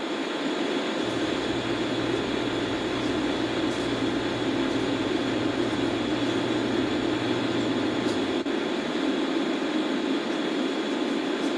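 Steady, even roar of ocean surf picked up by a camcorder microphone.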